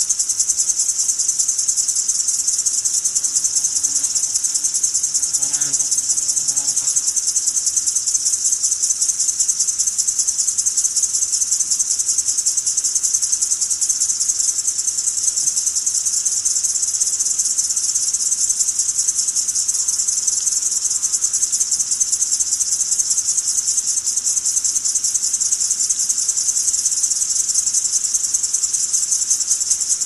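Daytime insect chorus of a South American tropical forest: a loud, steady, high-pitched buzzing drone with a fast pulsing texture.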